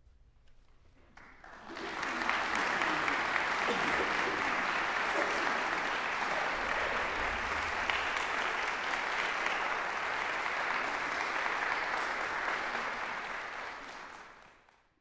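Audience applauding. It starts about two seconds in after a brief hush, holds steady, and fades out near the end.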